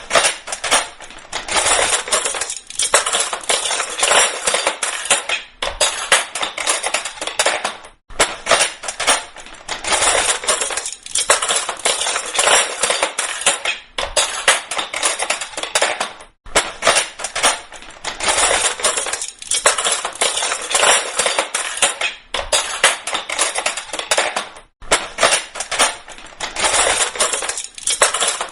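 Metal kitchen cutlery falling and clattering: dense runs of jangling clinks, each lasting two to three seconds, with brief pauses between them.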